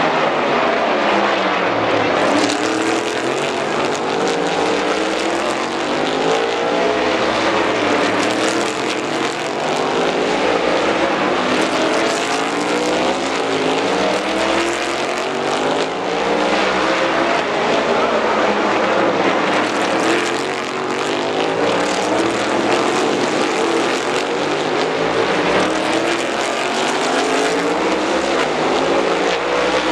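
Engines of several race cars running in a pack through a hairpin, their pitch repeatedly dropping as they brake and rising as they accelerate out, one car overlapping the next with no let-up.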